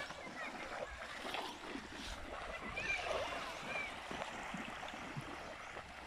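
Children wading through shallow seawater, their legs splashing and sloshing the water, with small waves lapping at the shore.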